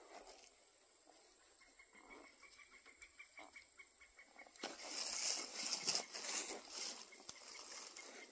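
Rustling and scuffing of a loaded hunting backpack and its straps as it is shouldered and adjusted, loudest from about halfway through for a couple of seconds. Before that, only a faint run of quick ticks.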